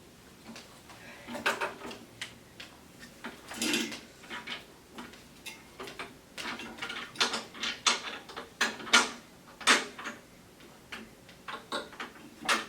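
Irregular clicks, knocks and rattles of electric-tiller parts being handled and fitted together by hand, with a few louder knocks.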